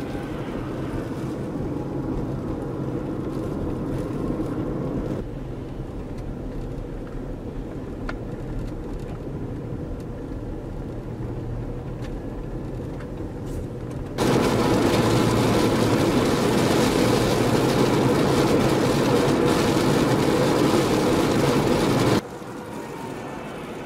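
Blizzard wind with a steady low hum of vehicle engines running on the snowy highway. Partway through, a much louder rush of wind hits the microphone for about eight seconds and then cuts off abruptly.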